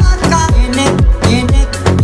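Background music: a song with a fast, steady drum beat and a melody over it.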